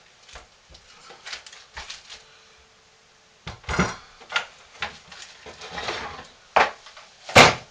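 Soap-mold side panels being lowered and handled on a wooden countertop: a series of light taps and knocks, louder knocks about three and a half seconds in, and one sharp knock near the end.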